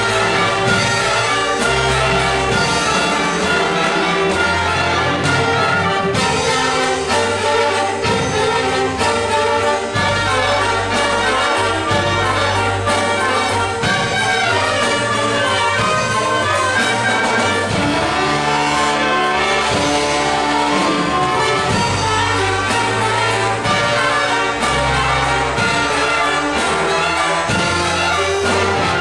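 Live church wind band playing a Christmas cantata passage: saxophones and trombones carry the melody over keyboard, with a moving bass line underneath.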